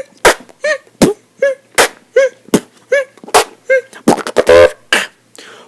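Beatboxing: a human voice doing vocal percussion, with sharp hits about every three quarters of a second and short pitched vocal blips between them. About four seconds in comes a longer buzzing bass sound.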